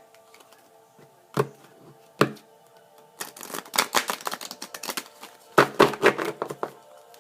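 A deck of oracle cards being handled: two sharp taps, then two quick flurries of rapid card-shuffling clicks, over soft background music.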